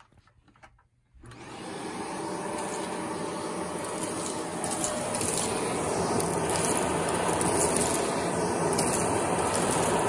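Shark Rotator Pro ZU782 vacuum, in lift-away mode with the bare wand, switched on about a second in: the motor spins up and runs steadily. From about halfway, small crackles as bits of a broken potato chip are sucked up the wand.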